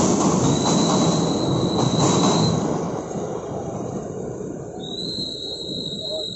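Passenger train rumbling across a steel truss rail bridge overhead, loud at first and fading from about three seconds in as the train moves away.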